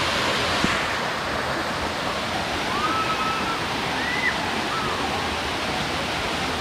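Steady rush of a small waterfall cascading over rock ledges into a shallow pool, with a few faint, short high calls over it a few seconds in.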